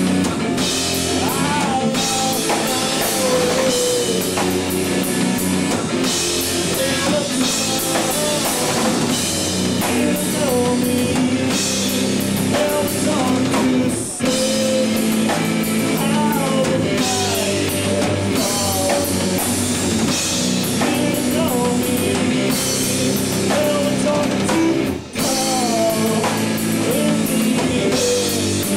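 Rock song with a full drum kit, guitars and a singing voice, the band playing steadily and dropping out for a split second twice.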